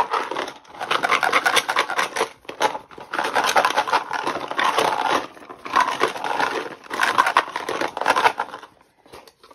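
A small cardboard box full of round numbered key tags rattling and clattering as it is shaken hard, in about four bursts of shaking. The noise dies away about nine seconds in.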